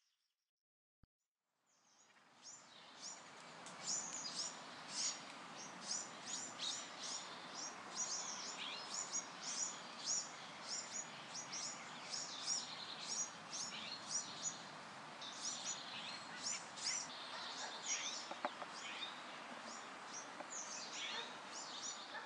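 Forest ambience: many birds chirping in short, rapid high notes over a steady background hiss. It fades in from near silence about two seconds in.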